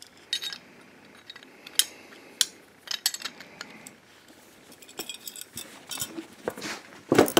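Steel wrenches clicking and clinking against a brass oil burner nozzle adapter as the nozzle is loosened, in scattered separate taps, with a louder clank near the end as the wrenches are handled and set down.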